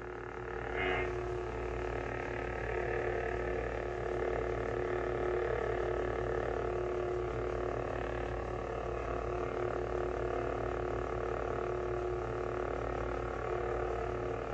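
Lightsaber sound-font hum from a Proffieboard-driven hilt speaker, a steady electronic drone held throughout, with a brief louder sound about a second in.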